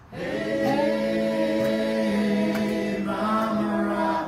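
A bluegrass band's voices singing together in harmony, holding long notes, with the instruments barely heard under the voices.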